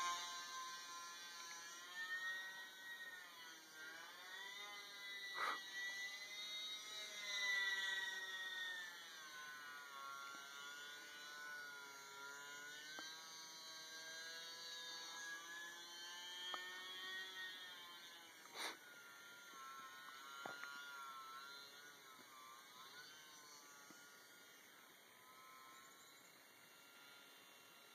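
Small electric motor and propeller of an E-flite UMX Yak 54 ultra-micro RC plane whining in flight. Its pitch rises and falls as the plane manoeuvres and the throttle changes, and it grows fainter near the end. A few sharp clicks come in between, the loudest about two-thirds of the way through.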